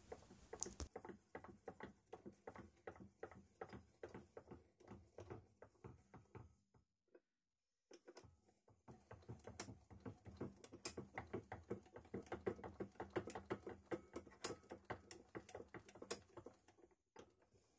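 Record No. 74 bench vise being wound open and then closed by spinning its handle with one finger: a run of faint, light clicks, a few a second, with a short pause about seven seconds in where the direction reverses.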